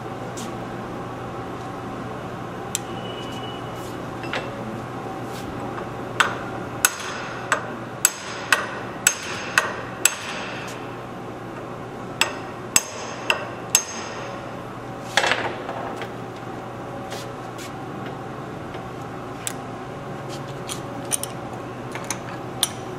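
Sharp metallic blows of a brass punch on a universal joint's steel axle yoke held in a bench vise, shifting the yoke to open clearance for the retaining clips. There are about eight blows at roughly two a second, a short pause, then four more, followed by a clatter and lighter metal clicks near the end.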